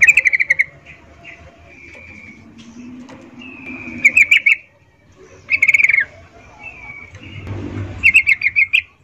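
Female yellow-vented bulbul (trucukan) calling in four loud bursts of rapid, sharp chattering notes, with softer short whistled notes between them. This is the breeding-condition call a female gives to draw a male.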